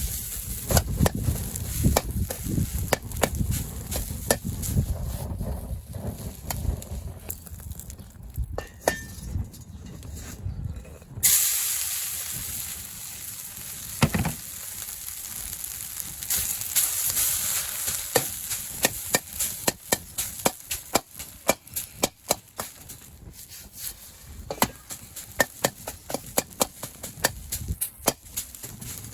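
Fried rice frying in a two-handled wok over a charcoal fire, with a utensil repeatedly knocking and scraping against the pan as it is stirred. About eleven seconds in the sizzling jumps up suddenly and stays loud, as something is tipped into the hot wok.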